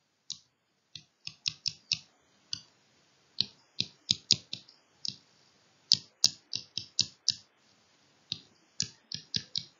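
Sharp light clicks in irregular quick runs, from a stylus tapping on a pen tablet as chemical formulas are hand-written on screen, with a short pause shortly before the end.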